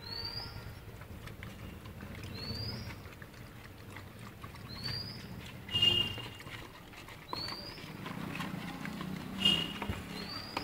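A bird calling over and over, one short rising chirp about every two and a half seconds, over faint scuffling of stray dogs feeding close by. Two brief high squeaks stand out, about six seconds in and near the end.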